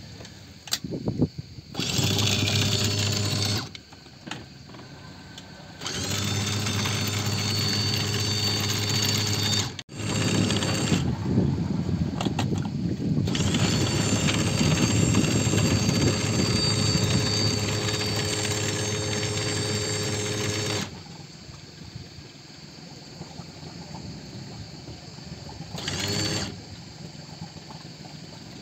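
A small electric motor on the boat running in abrupt on-off runs: a short one about two seconds in, a long one of about fifteen seconds from six seconds in, and a brief one near the end, with a lower steady hum between.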